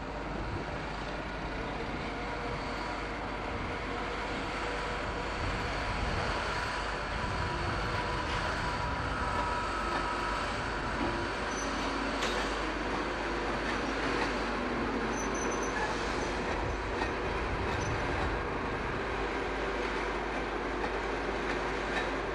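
British Rail class 86 AC electric locomotive and its train running slowly over station pointwork: a steady rumble with occasional wheel clicks and a brief thin wheel squeal about nine seconds in.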